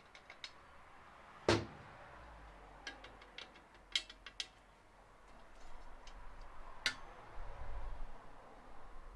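Metal clicks and one louder knock as a cam lock is handled and worked into a hole in a metal cupboard door, with a rough scraping noise building in the second half.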